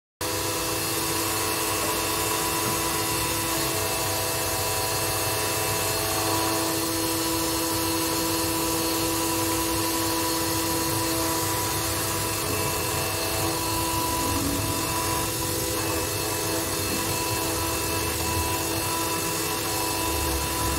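Scroll saw running steadily with an even motor hum, its reciprocating blade cutting through a sheet of acrylic.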